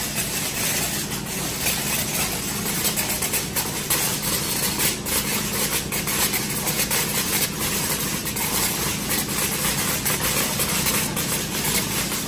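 Date sorting line running: a steady machine hum and hiss, with many light clicks and taps of dates dropping off stainless-steel chutes into plastic crates.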